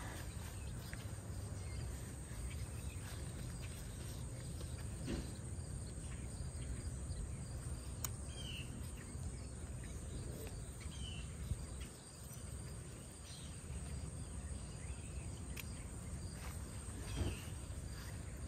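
Steady outdoor garden ambience: insects trilling continuously over a low background rumble, with a few short bird chirps and a couple of faint sharp clicks.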